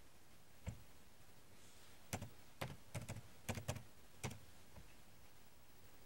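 Computer keyboard keys being typed: one click, then a quick run of about seven keystrokes a little over a second later, as a short word is typed and entered.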